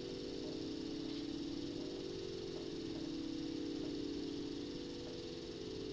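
A steady hum of several close, level tones from a small motor or electrical device running, unchanging throughout.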